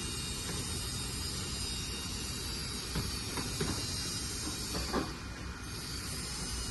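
Hydraulic pump of a metal 1:14-scale-style RC excavator running steadily with a hiss and a thin high whine, with a few short clanks about three, three and a half and five seconds in as the machine works.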